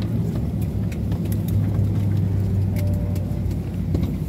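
Airbus A320neo cabin at a standstill after landing: a steady low drone from the aircraft's air systems, with scattered light clicks throughout.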